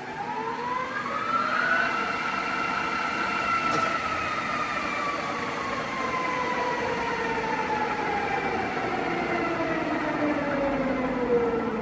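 Standard Modern engine lathe's geared headstock and spindle running up to its top speed of 1600 RPM: a whine of several tones rises over the first two seconds, holds briefly, then falls slowly as the spindle winds down.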